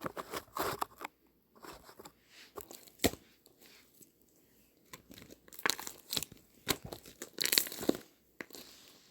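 Irregular close-up crunching and crinkling noises in separate bursts with short pauses, loudest about seven and a half seconds in.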